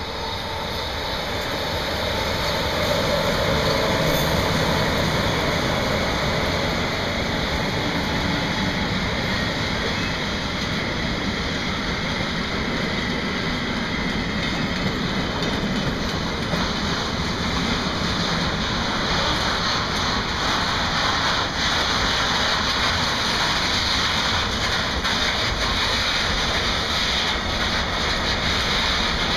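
Mixed freight train rolling past behind an electric locomotive: a steady rumble and rattle of wagon wheels on the rails, growing louder over the first few seconds as the train comes near, then holding steady as the tank-container and flat wagons go by.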